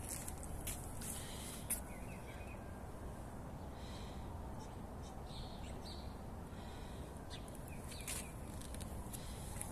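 Faint bird chirps now and then over a steady background hiss and rumble, with a couple of light clicks.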